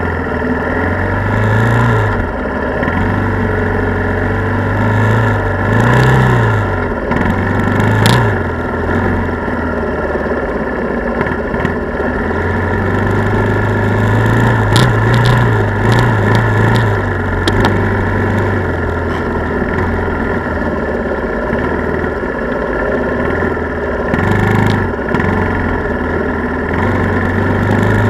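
Quad ATV engine running steadily while riding. Its pitch rises briefly several times as the throttle is opened, and there are a few sharp clicks around the middle.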